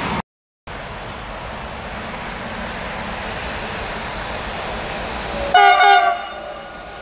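Electric locomotive's horn: one short blast, several notes sounding together as a chord, lasting under a second about five and a half seconds in. Around it a steady hiss of the approaching train.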